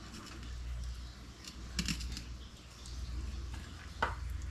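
Knife cutting through a white bullhead catfish on a plastic cutting board: a few short scraping clicks, about two seconds in and again near the end, over a steady low hum.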